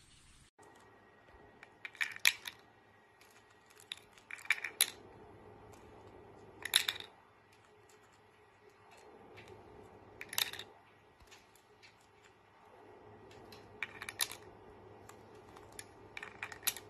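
Hard plastic stacking rings clacking against a clear acrylic peg board as a little corella picks them up and drops them onto the pegs: sharp clacks every two to four seconds, some in quick clusters, over a quiet room.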